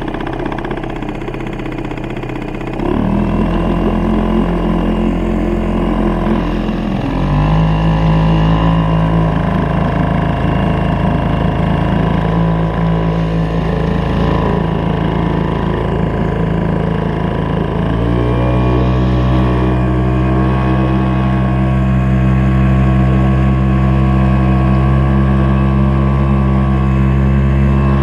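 Boat motor running under way, opened up in steps: its pitch jumps up about 3 s, 7 s and 18 s in and holds steady after each rise.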